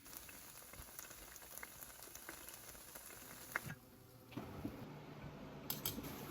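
Food frying in a pan: a quiet, steady sizzle with scattered small pops. The sizzle drops out briefly about two-thirds of the way through, then resumes.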